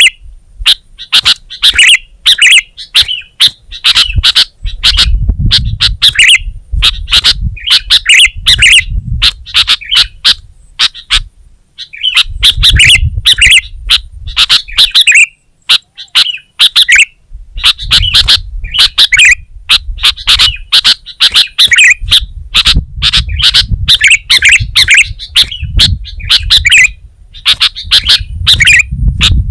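Sooty-headed bulbul (kutilang) singing loudly and continuously, a rapid run of repeated chirping phrases with a couple of short pauses.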